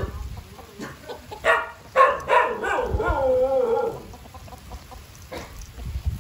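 Rooster crowing once, about a second and a half in: a short opening note and then a long drawn-out call that slides down in pitch at its end.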